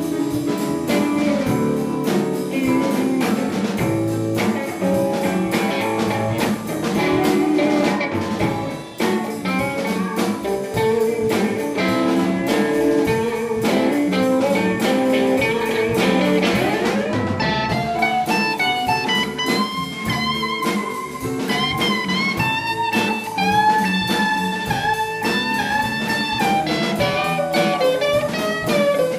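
Electric blues band of drum kit, bass guitar, keyboard and electric guitar playing an instrumental passage. About halfway through, the lead electric guitar slides up the neck and takes a solo of sustained, bent notes with vibrato.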